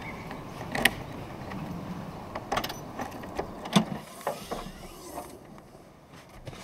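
Clicks and knocks of a Volkswagen Golf hatchback's tailgate being unlocked and lifted open, the loudest knock a little before the middle, then smaller knocks as things in the boot are moved about.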